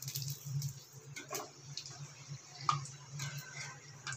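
A puri deep-frying in hot oil in a small kadai, the oil sizzling and crackling in scattered pops, with a few light clicks of metal tongs and a spatula against the pan. A steady low hum runs underneath.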